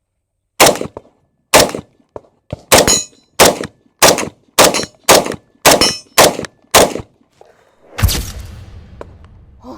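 IWI Tavor 7 bullpup rifle firing 7.62 NATO (.308) rounds semi-automatically: eleven shots. The first two come about a second apart, then eight follow quickly at a bit under two a second, and a last shot after a pause leaves a long, low rumbling tail.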